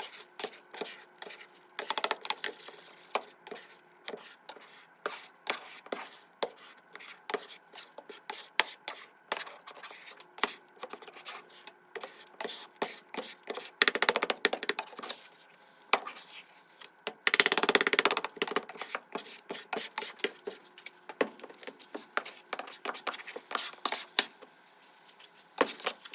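Spatula scraping and tapping against a frying pan while scrambling eggs, in a run of quick uneven clicks and scrapes, with a couple of longer, louder scraping stretches past the middle.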